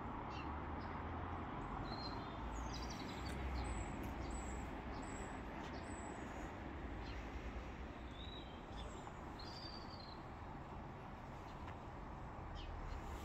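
Small birds chirping a few times over a steady low outdoor background rumble.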